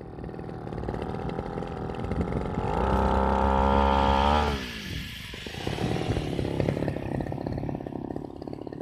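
Small engine of a backpack brush-cutter-style rice harvester running. About three seconds in it revs up, holds high and loud for about a second and a half, then drops back to a lower speed with a rough clatter.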